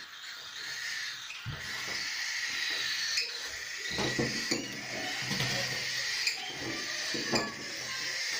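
Hand-fed parrot chicks begging at feeding time: a steady chorus of raspy, hissing food calls, with occasional clicks and knocks from the handling.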